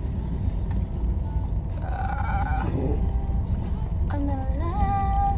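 Steady low rumble of a car cabin on the move, with a voice twice sounding a short, wavering sung phrase: once about two seconds in and again from about four seconds.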